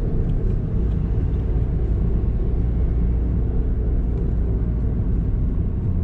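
Inside the cabin of a moving Hyundai Creta: a steady, low, muffled hum over road noise, from a worn front wheel bearing, which the owner places at the front right side.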